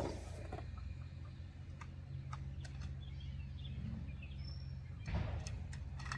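Springfree trampoline mat rods being handled and fed into place: scattered light clicks and rustling, with a louder rustle at the start and another about five seconds in, over a steady low hum. Birds chirp faintly in the middle.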